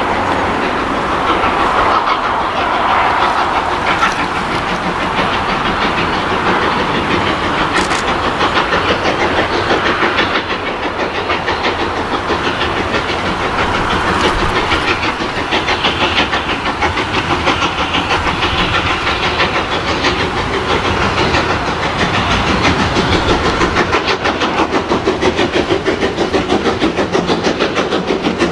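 LSWR T9 class 4-4-0 steam locomotive no. 30120 working hard with a passenger train, its exhaust beating in a rapid, even rhythm that becomes more distinct and slightly louder as it approaches.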